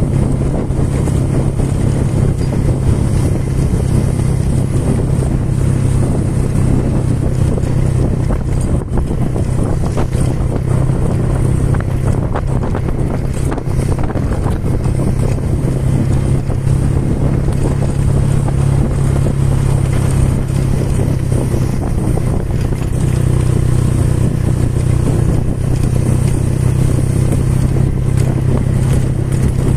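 A motor vehicle's engine running steadily at cruising speed, a constant low hum with wind and road noise over it.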